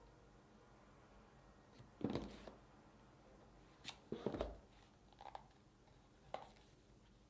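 Packaging being handled during unboxing: a handful of short, scattered knocks, crinkles and one sharp click.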